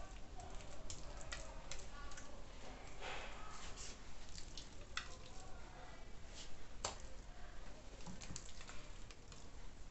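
Kitchen handling noises: a spoon spreading soft, creamy chicken filling into a dough-lined pan, with soft wet squishes and scattered clicks and taps, the sharpest about five and seven seconds in.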